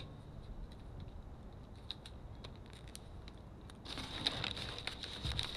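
Brown paper bag being crinkled and crumpled by hand: faint scattered crackles at first, then a louder run of crackling from about four seconds in.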